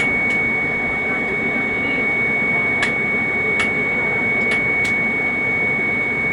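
A motor-driven machine running steadily with a constant high whine and a noisy hum, with a few sharp, light clicks scattered through it.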